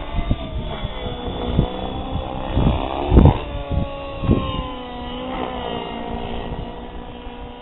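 Compass 6HV electric RC helicopter in flight: a steady whine from its motor and rotor head that drifts up and down in pitch as it manoeuvres, with a few low thumps, the loudest about three seconds in.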